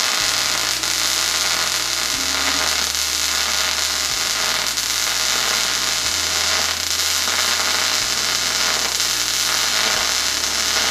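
MIG welder arc running steadily as a fillet weld is laid along a steel lap joint: a continuous, even hiss with no breaks.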